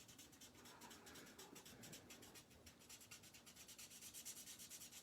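Near silence with faint scratchy strokes of an alcohol marker colouring on paper.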